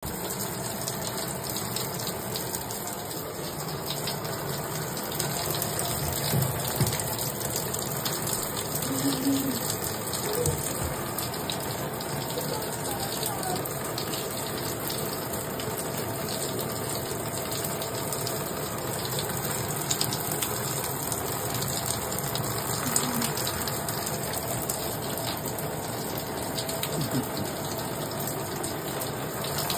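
Shower water spraying steadily from a showerhead into a bathtub, a constant hiss.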